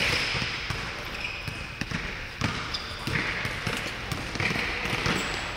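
Basketball game on an indoor hardwood court: the ball bouncing and players' sneakers knocking on the floor as they run, with a few short high squeaks.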